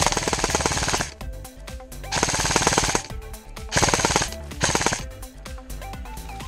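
Airsoft rifle firing on full auto in four bursts, each a fast rattle of shots: the first two about a second long, the last two short.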